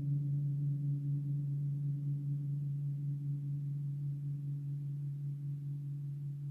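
Gong ringing on in a steady low hum with a fainter, higher overtone, slowly dying away with no fresh strike.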